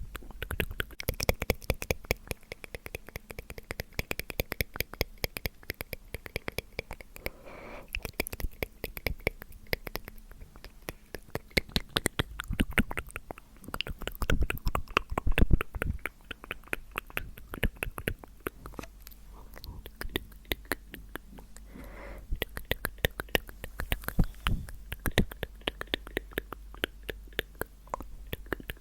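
Mouth sounds: rapid wet clicks and smacks of the lips and tongue, going on without a break and growing denser and louder for a few seconds about halfway through.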